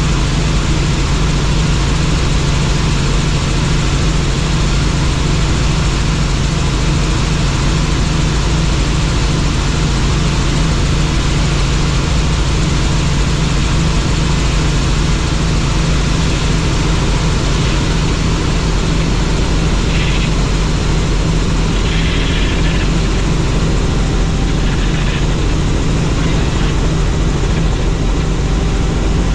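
Helicopter running steadily in flight: a loud, even engine and rotor noise with a deep, constant hum underneath.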